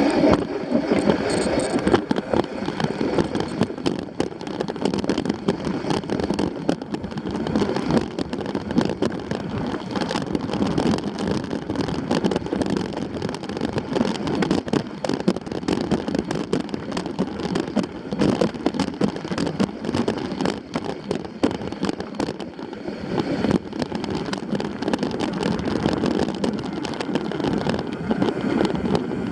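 Continuous riding noise on a mountain trail: wind buffeting the microphone, with a constant rattle of many small knocks and clicks.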